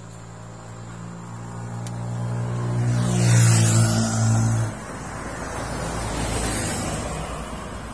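Motorcycle riding past on the road, its engine note growing louder to a peak about three and a half seconds in, then dropping away sharply. Another vehicle's road noise then swells and fades.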